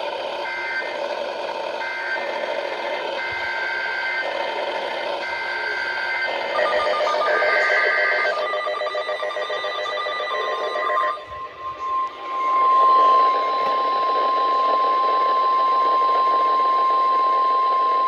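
NOAA Weather Radio Emergency Alert System signal: repeated short bursts of screeching SAME digital data tones, then the steady 1050 Hz warning alarm tone held for the last several seconds, announcing a new warning.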